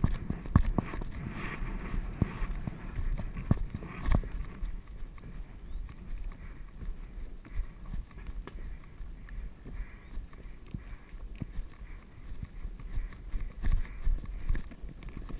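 A horse's hoofbeats thudding irregularly on soft earth at speed, with wind rumbling on the helmet-mounted camera's microphone.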